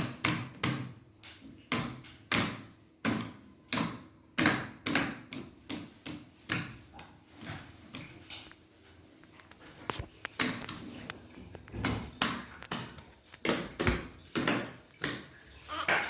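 A run of irregular knocks and bangs, about one or two a second, like a door or drawer being rattled or knocked against.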